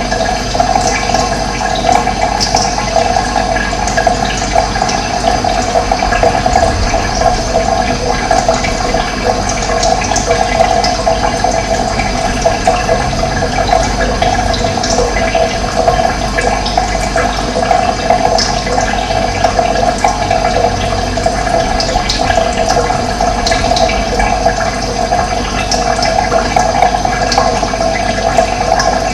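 Running water rushing steadily and evenly, with no pauses or changes.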